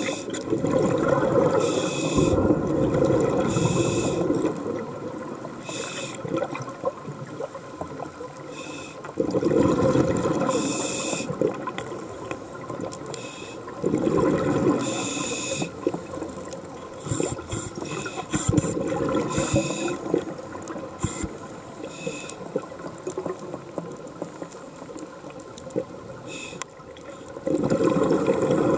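A scuba diver breathing through a regulator underwater: several long gushes of exhaled bubbles, with short high hisses from the regulator on the in-breaths between them.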